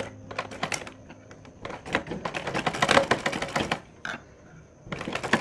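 Black domestic sewing machine stitching through cloth: a rapid clatter of needle strokes. It comes in two runs, the first starting about a second and a half in, with a pause of about a second before the second.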